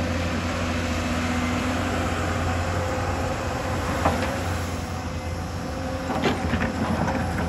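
Hyundai crawler excavator's diesel engine running steadily under load as the machine slews and swings its bucket. A sharp knock comes about four seconds in, and a few more clanks come near the end as the bucket comes down.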